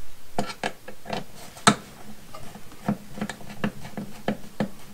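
A screwdriver driving the screws that hold the plastic cover on an Ethernet surge protector box, making a run of light, evenly spaced clicks about three a second.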